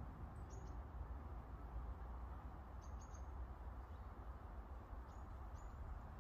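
Faint outdoor background of a steady low rumble on the microphone, with a few short, high chirps from small birds: one about half a second in, a pair around three seconds, and two more a little after five seconds.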